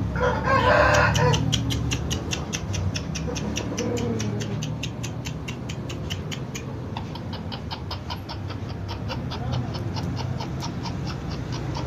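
Aseel chicken calling in a short, rough burst at the start, followed by a rapid, even high-pitched ticking, about five a second, over a low steady hum.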